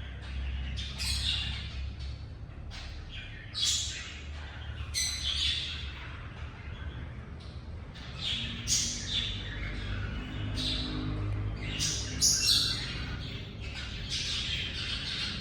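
Cockatiel giving short, harsh squawks and chirps at irregular intervals, one every second or two.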